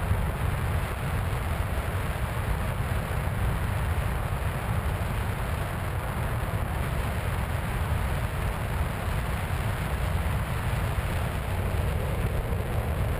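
Steady rush of airflow buffeting the onboard camera's microphone on a Skywalker 1900 radio-controlled plane in flight, a constant noise heaviest in the low end.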